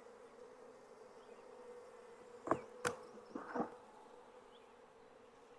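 Honeybees from an open hive buzzing as a faint, steady hum, with a few short knocks about halfway through.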